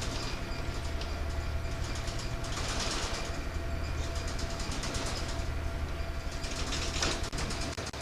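Steady low drone of the M.V. John Hamilton Gray ferry's engines heard on board, with a fast even pulsing over it. Two louder rushes of noise come through, about two and a half and seven seconds in.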